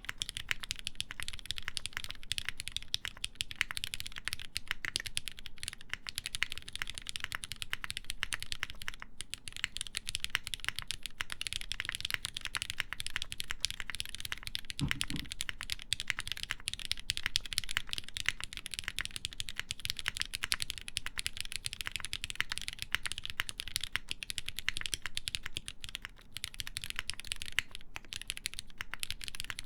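Steady, fast typing on a Finder Works Hyphen prototype mechanical keyboard with lubed Cherry MX Black linear switches and ABS keycaps: a dense run of key clacks. There is one low thump about halfway through.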